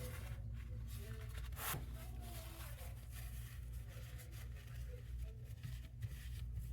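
Light, irregular rubbing and scraping as old thermal paste is wiped off a laptop heatsink, with a brief click about two seconds in, over a steady low hum.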